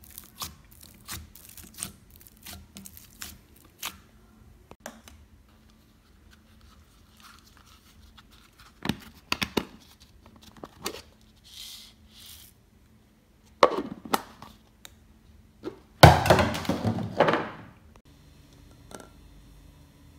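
Hands squishing foamy slime with small crackles and clicks, then hollow plastic toy eggs being handled and snapped open with sharp clacks. A dense clatter of about a second and a half, about three-quarters of the way through, is the loudest sound.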